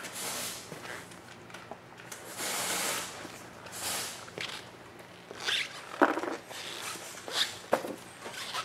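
Rustling and handling noise with a few sharp knocks, the loudest about six seconds in; no power-tool motor is heard.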